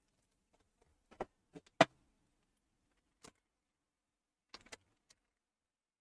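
A handful of light, separate clicks and knocks from small objects being handled, the loudest just under two seconds in and a short cluster near five seconds.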